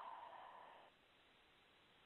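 The tail of a deep breath out, heard over a telephone line, fading away about a second in; then near silence.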